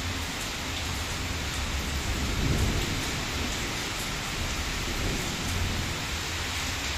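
Heavy rain falling, a steady hiss, with a low rumble that swells briefly about two and a half seconds in.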